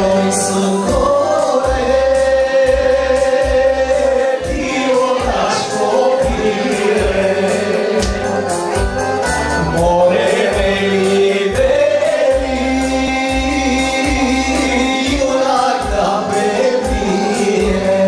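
Several men singing a Bulgarian folk song together into microphones, over amplified backing music with a pulsing bass beat.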